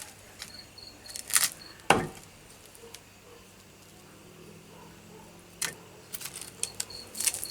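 Scattered light clicks, knocks and short rustles of food and utensils being handled while eating, with one sharper knock about two seconds in. A faint high pulsing tone sounds in the background in the first and last seconds.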